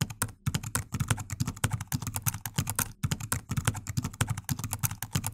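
Rapid, fairly even clicking, like typing on a computer keyboard, about ten clicks a second.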